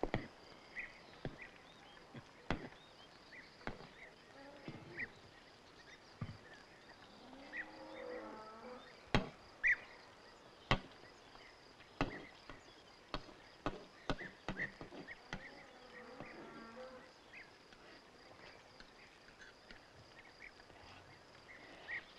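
Metal spoons clinking and knocking against bowls and dishes in scattered, irregular taps, with a faint steady high trill behind them.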